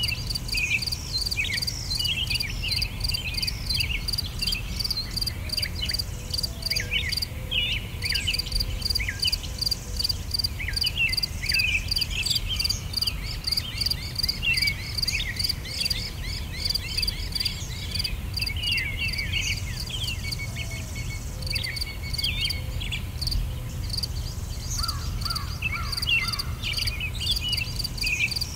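Insects chirping in a fast, steady pulse, with many short bird calls over them and a low rumble underneath.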